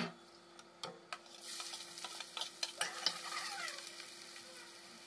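Ghiya (bottle-gourd) kofta fritters sizzling in hot oil in an iron kadhai while a steel ladle stirs them, with a few sharp clinks of the ladle against the pan. The sizzle swells about a second and a half in and fades near the end.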